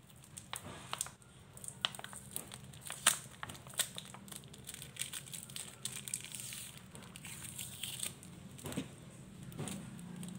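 Small plastic sachet crinkling and crackling in the fingers as it is handled and torn open, in many short, sharp clicks.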